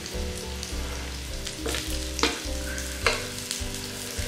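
Aloo patties sizzling as they shallow-fry in a little oil on a nonstick tawa. A spatula clicks against the pan three times as the patties are turned over.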